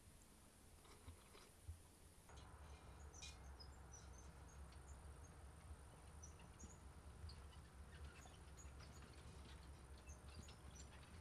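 Faint outdoor ambience: scattered short, high bird chirps over a steady low rumble.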